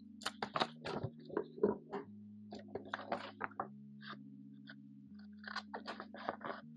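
Sticker sheets and paper being handled at close range: irregular crisp crinkles and clicks, busiest in the first two seconds and again near the end. Soft guitar background music plays underneath.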